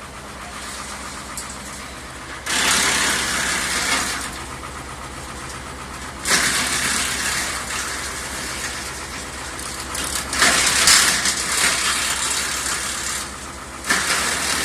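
AGT SSBX42S wood chipper running with a steady low engine hum, broken by four surges of loud, rough noise, each one to three seconds long, as wood goes through the cutters.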